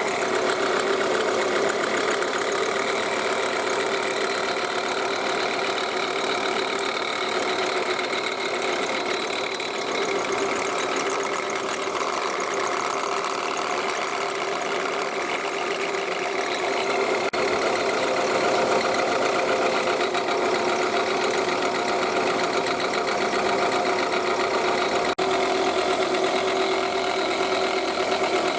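Toyota Estima engine running at idle with a steady whirring drone from a worn alternator bearing, the source of the engine-bay noise. It grows a little louder about two-thirds of the way through.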